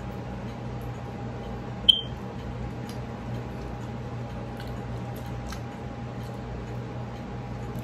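Fingers picking through fried tilapia and rice on a ceramic plate: one sharp, ringing clink of dishware about two seconds in, then a few faint small clicks, over a steady low hum.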